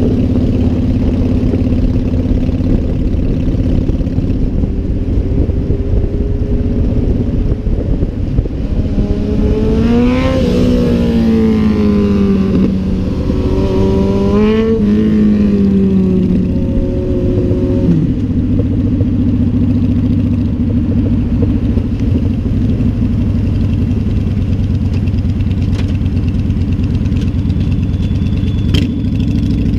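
Motorcycle engine running under way. It revs up and eases off twice between about a third and halfway through, then drops back to a steadier drone. There is a single sharp click near the end.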